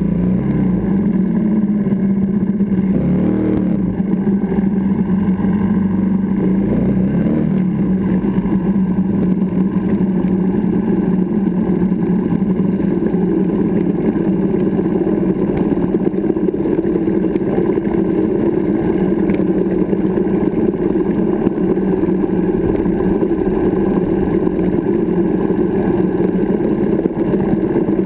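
Benelli TNT 125's single-cylinder four-stroke engine running steadily as the motorcycle rides along a rough track, its pitch wavering briefly with the throttle about three seconds in and again around six to seven seconds.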